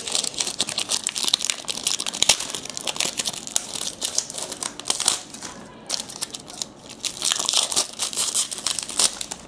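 Trading card pack wrapper crinkling and tearing as it is opened by hand, in several dense stretches of crackly rustling.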